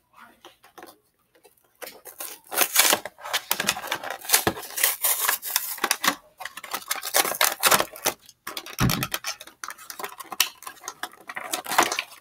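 Clear plastic packaging crinkling and crackling as it is pulled and torn open by hand, starting about two seconds in with a few faint clicks before it.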